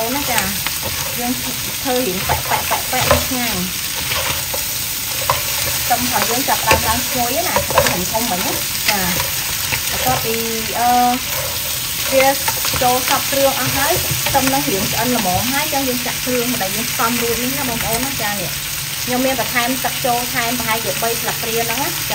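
Crab pieces in their shells sizzling as they are stir-fried in a hot wok, with the spatula scraping and knocking against the pan and shells throughout.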